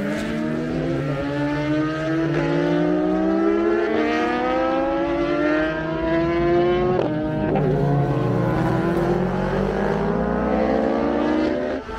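Racing motorcycle accelerating hard down the road, its engine note climbing steadily and dropping at each upshift, the sharpest shift about seven seconds in.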